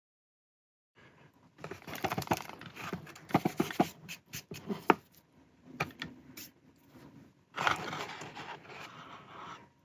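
Irregular clicks, knocks and scrapes of hard parts and tools being handled, with a denser stretch of scraping about three-quarters of the way through.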